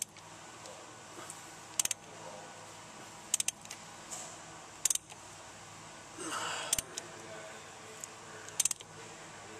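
A ratchet and socket on the crankshaft pulley bolt of a Hyundai 2.7L V6, turning the engine over by hand to check the timing marks after a timing belt replacement. Short bursts of sharp metallic clicks come about every one and a half seconds as the handle is swung back between pulls.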